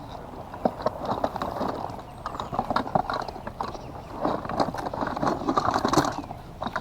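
Irregular clacking and knocking of hard objects being handled and picked through, with faint voices in the background.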